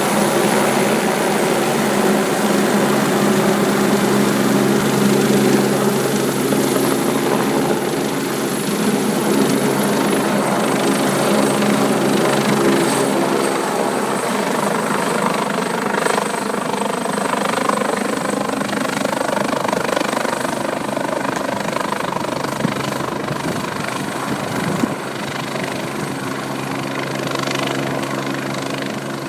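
Mountain rescue helicopter running loudly, its rotor and engine giving a steady drone, with the tone shifting and blurring for a stretch around the middle.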